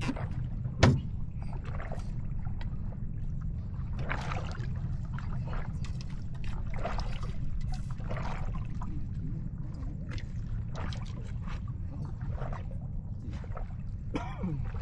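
Boat motor running with a steady low drone, water splashing at irregular intervals, and one sharp knock about a second in.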